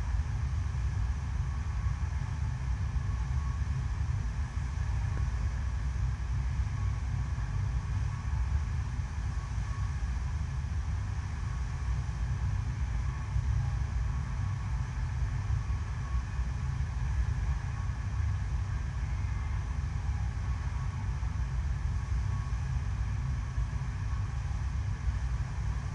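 Steady rushing and rumbling of a thin sheet of pumped water flowing up the ramp of an artificial surf wave machine, heavy in the low end and unbroken throughout.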